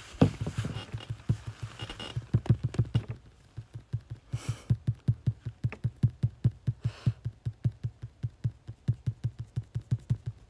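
An animal ASMR recording playing back: a rapid, regular run of soft low thumps with faint clicks, several a second. It is loudest in the first few seconds.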